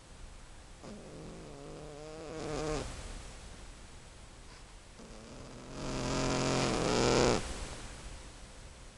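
Old cat snoring in its sleep: two drawn-out snoring breaths about four seconds apart, the second louder. Each builds and then cuts off sharply.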